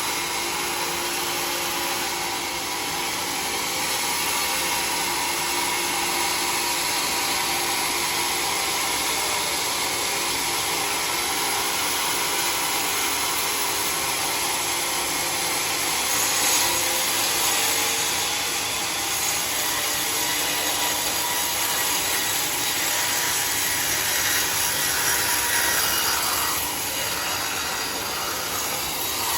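A sawmill saw cutting through a mahogany log: steady, loud sawing noise with a few faint held tones, swelling slightly now and then.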